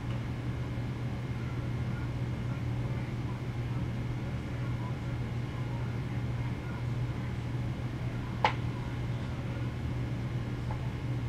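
Steady low background hum, with a single sharp click about eight and a half seconds in.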